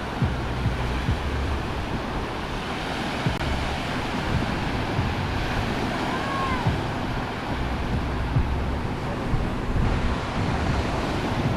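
Ocean surf breaking and washing on a beach, with wind buffeting the microphone in low rumbling gusts.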